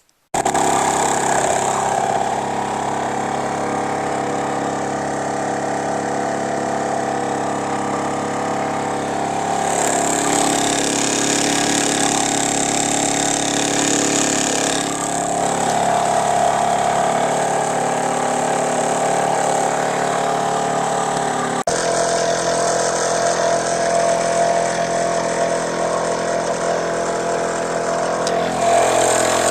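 Small engine running steadily at a constant speed; it comes in suddenly just after the start.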